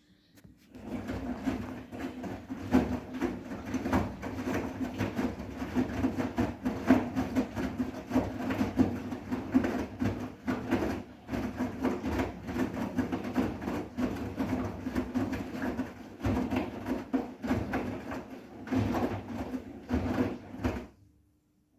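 Bosch WGA252Z0TR front-loading washing machine running its wash, the drum turning wet towels with an uneven churning sound and frequent small knocks; it starts abruptly under a second in and stops abruptly near the end.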